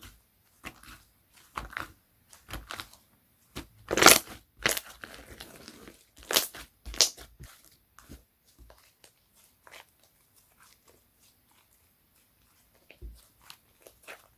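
Slime being squeezed, stretched and pressed by hand, giving irregular clicks and pops. The loudest come about four seconds in and again around six and a half to seven seconds, and they thin out for a few seconds before picking up near the end.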